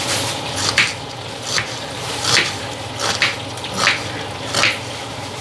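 Knife cutting food, a slow stroke about every three-quarters of a second, with a steady low hum underneath.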